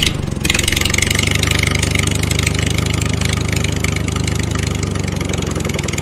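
Tractor engine running steadily with an even chugging rhythm.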